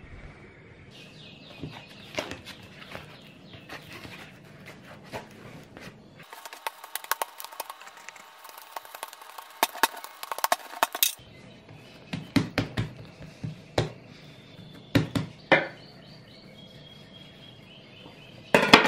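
Bread dough being handled on a wooden tabletop, knocked back, folded and kneaded, giving irregular soft thuds and slaps. There is a louder clatter near the end.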